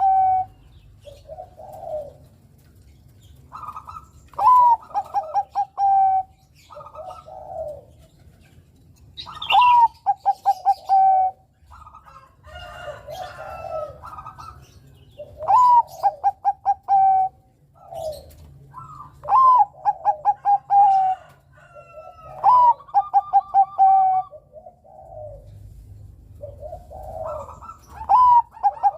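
Zebra dove (a Bangkok-bred perkutut) singing its contest song: each phrase opens with a rising note and runs into a quick string of short, stuttering coos. The loud phrases come back every three to six seconds, about seven times, with softer coos in between.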